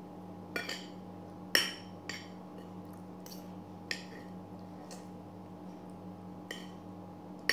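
Metal spoon and fork clinking and scraping against a ceramic plate while eating, about six separate clinks with the loudest about a second and a half in, over a faint steady hum.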